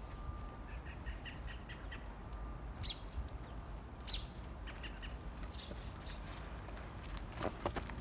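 Small birds chirping: short quick runs of chirps and a few sharp, downward-sweeping calls, over a steady low rumble. Footsteps crunching in snow begin near the end.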